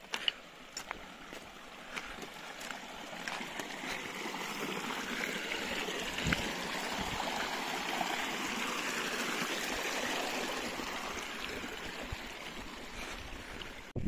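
Small mountain stream rushing and trickling over rocks, swelling to its loudest around the middle and fading again toward the end.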